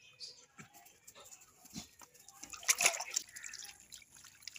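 Water poured from a metal bowl over a dog's back, splashing and dripping off its wet coat, with the loudest splash about three seconds in.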